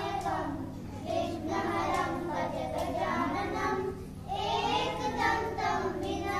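A group of young children singing together in phrases, their voices wavering in pitch.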